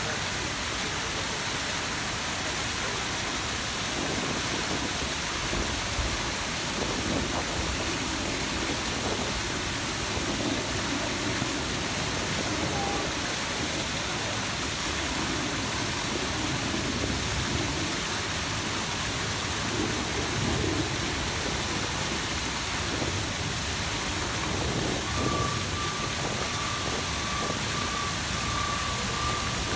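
Large palace fountain jets and cascades splashing and falling into the basin, giving a steady, even rush of water.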